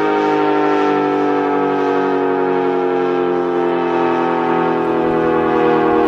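ACA Cyclone 120 outdoor warning siren sounding loud and unbroken, several tones at once, all sliding slowly down in pitch.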